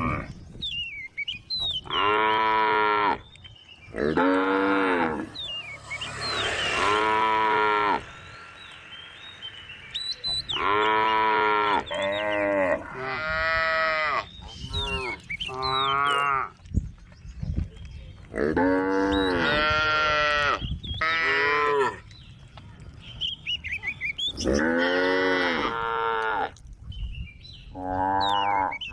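Cows mooing over and over, calling to the herd: about a dozen loud, drawn-out moos, each lasting a second or two, some overlapping or following close on one another, with short pauses between.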